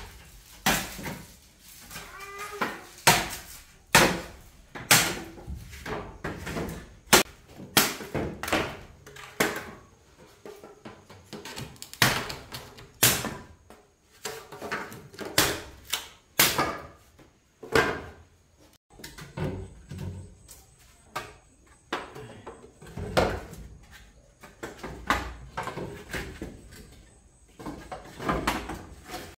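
A long run of irregular knocks and thuds, roughly one or two a second, with faint high wavering sounds between some of them.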